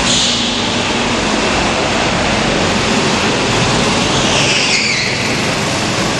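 Mini kart engines running on the track, a steady noisy drone, with a brief high squeal near the start and another about four and a half seconds in.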